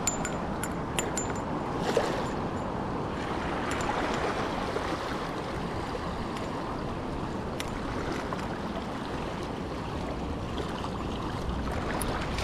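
Small waves washing and swirling over a shallow rocky reef shoreline, a steady rushing wash, with a few faint small clicks on top.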